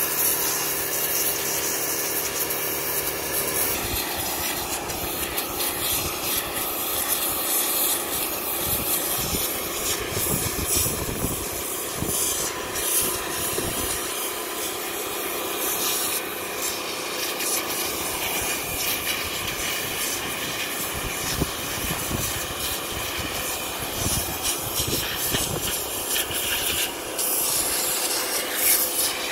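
Kärcher electric pressure washer blasting a jet of water onto a pike to scale it: a steady hiss and spatter as the jet strikes the fish and the wooden board.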